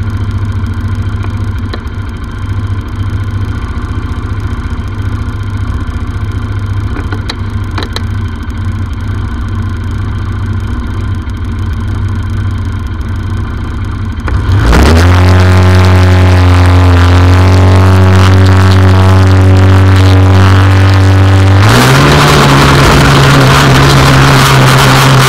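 A race buggy's engine idling steadily at the start line, then revving up sharply about fifteen seconds in and holding a steady higher pitch. About twenty-two seconds in it climbs again, louder and rougher, as the buggy pulls away down the dirt track.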